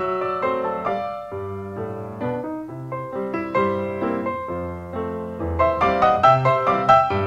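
Background piano music: quick single notes over a steady bass line, getting louder and busier about five and a half seconds in.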